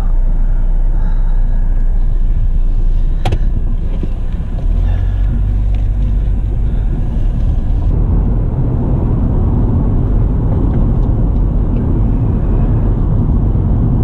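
Car engine and road noise from a car under way, a steady rumble that grows louder about five seconds in and again around eight seconds.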